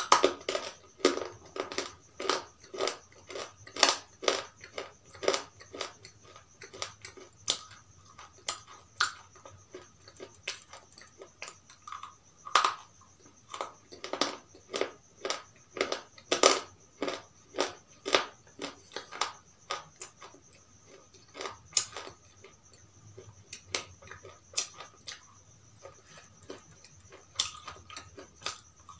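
Close-up crunching as a person bites and chews hard white sticks: sharp, separate crunches about one to two a second, some louder than others.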